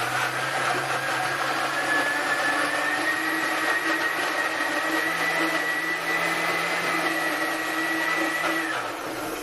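Countertop blender running at speed, puréeing chopped tomatoes, parsley and garlic. Its steady motor whine rises slightly in pitch over the first few seconds, then the motor switches off and runs down shortly before the end.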